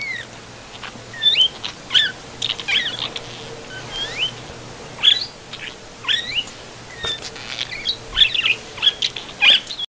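A budgerigar chattering: short chirps and squeaks that sweep up and down in pitch, coming in irregular bursts about once a second, with sharp clicks among them. The sound stops abruptly near the end.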